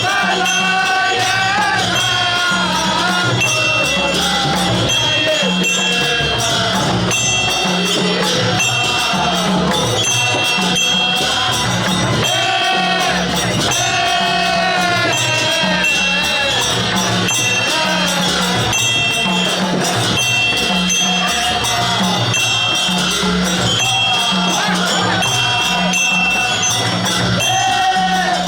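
Festival procession music: drums beating a steady repeating rhythm under ringing cymbals and a gliding melody.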